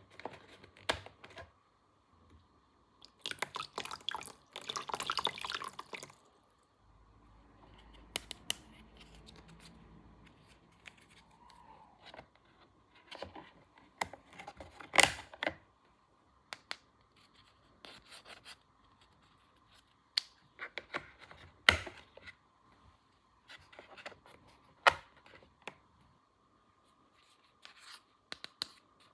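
Small plastic toy pieces being handled and set down: scattered sharp clicks and taps, with a dense rustling stretch about three to six seconds in and a low steady hum from about seven to eleven seconds in.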